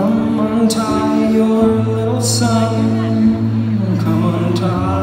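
A man singing long held notes while playing an acoustic guitar, heard from the audience in a concert hall.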